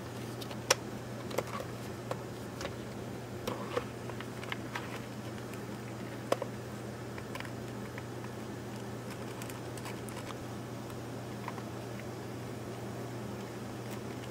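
Small sharp clicks and taps of the camcorder's plastic housing pieces being fitted together and screwed down with a precision screwdriver, over a steady low hum. The clicks come every half second or so for the first seven seconds, then only now and then.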